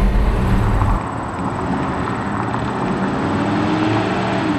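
The rebuilt 396 big-block V8 of a 1967 Chevelle SS runs under the cabin for about a second while driving. It then cuts abruptly to a steadier outdoor vehicle drone, with a vehicle passing near the end.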